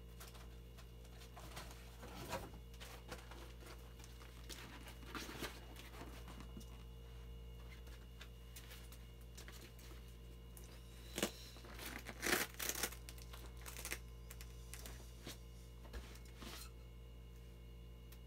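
Inflated vinyl cooler being handled: scattered crinkling and rubbing of the plastic, with a louder flurry of crinkles a little past the middle.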